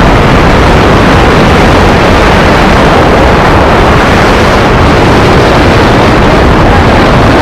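Wind rushing hard over the microphone during a skydive: a loud, steady, buffeting roar with no pitch to it.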